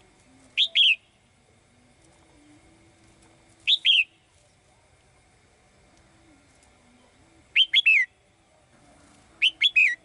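Caged female red-whiskered bulbul singing four short phrases about every three seconds, each of two or three quick, clear falling notes.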